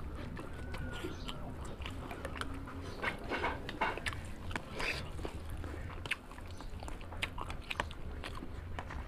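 A person chewing and biting food close to the microphone: irregular mouth clicks and smacks, thickest a few seconds in, with occasional crunches.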